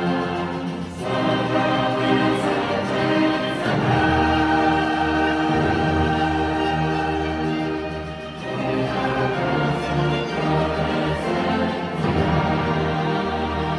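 Large combined choir singing with full orchestra and band, held chords building through a long sustained note, with a brief easing about two-thirds of the way through.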